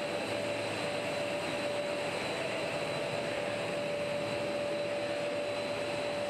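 Dry pet food processing line machinery running steadily: an even rushing machine noise with a constant mid-pitched whine.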